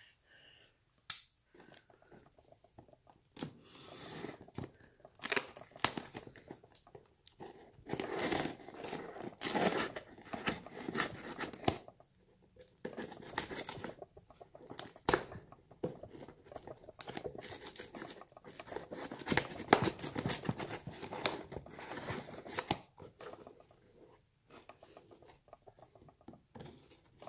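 Packing tape on a cardboard shipping box being slit with a folding knife and torn away, in irregular scraping strokes, with a sharp click about a second in.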